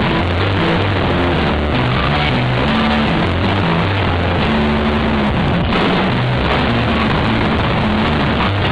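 Live rock trio of electric guitar, electric bass and drum kit playing loudly, the bass line stepping from note to note under a dense wash of guitar and drums.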